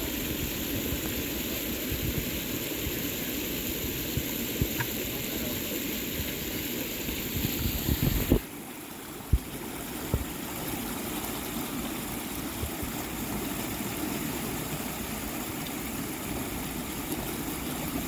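Swollen, muddy creek rushing steadily. A couple of sharp thumps come about eight and nine seconds in, and after the first the rushing sounds duller and quieter.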